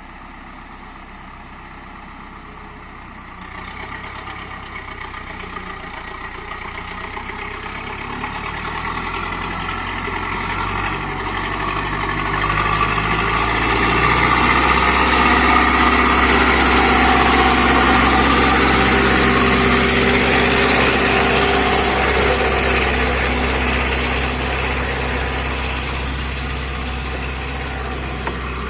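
Zetor 5745 tractor's diesel engine running, growing steadily louder over the first half and easing off slightly toward the end.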